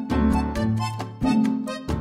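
Light instrumental background music: short, crisp notes over a bass line in a steady bouncy rhythm.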